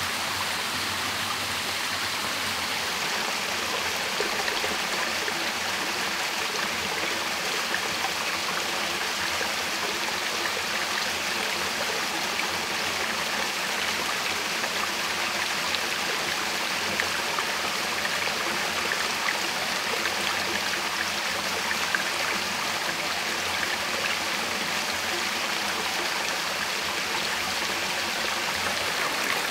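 Shallow rocky stream and small waterfall running steadily, with a few small sharp sounds over the rushing water.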